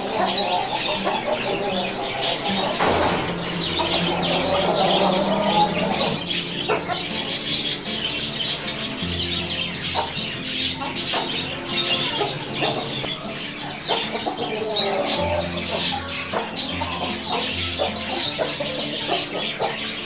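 Domestic hens clucking while they feed on scattered grain, over background music.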